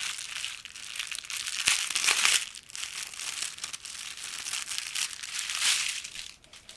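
Packaging crinkling and rustling as an item is unwrapped by hand, louder around two seconds in and again near the end before it stops.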